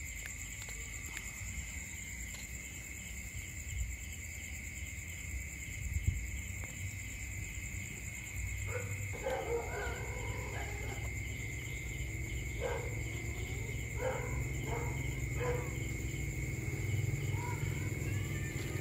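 Crickets trilling steadily. From about halfway in, a series of short cat cries comes every second or two from a pair of cats mating.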